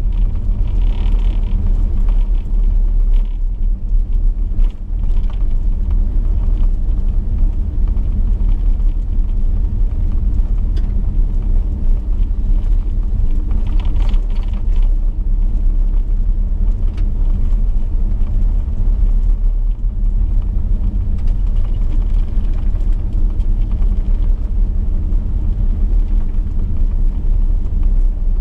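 Chevrolet V8 car cruising steadily on a gravel road: a steady engine drone under a low rumble from the tyres on the gravel.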